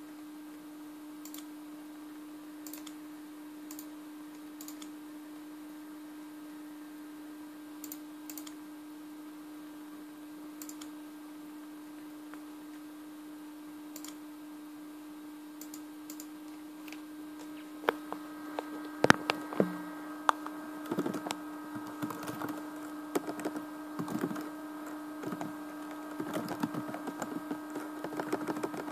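Typing on the ASUS Eee PC 900 netbook's keyboard: a few isolated key clicks at first, then rapid, irregular key clicking from about two-thirds of the way in. A steady low hum runs underneath.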